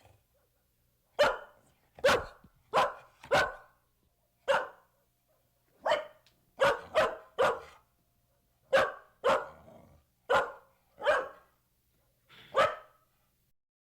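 A dog barking: about fourteen single barks at uneven intervals, some in quick pairs, stopping about a second before the end.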